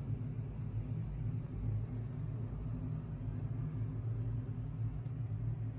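A steady low hum with a few faint ticks near the end.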